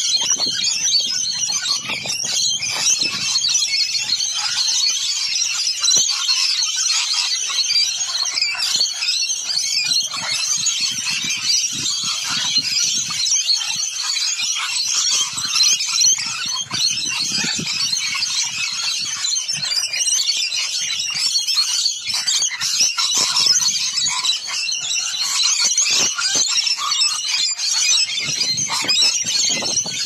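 A large feeding flock of rainbow lorikeets screeching and chattering without a break, a dense, high-pitched din of many overlapping calls.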